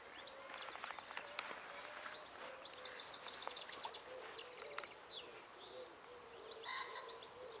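Several small birds singing and chirping, with a fast rattling trill about three seconds in.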